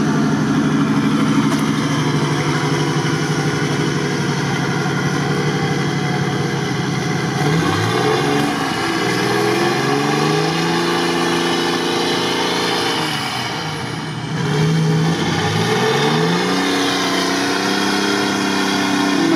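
Off-road 4x4 engine running steadily, then revving up twice under load, about 8 seconds in and again about 16 seconds in, each time rising and then easing off.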